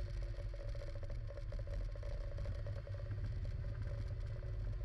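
Ka-52 coaxial-rotor attack helicopter in flight, heard from inside the cockpit: a steady, deep rotor and engine thrum with a faint constant hum above it and a light rattle.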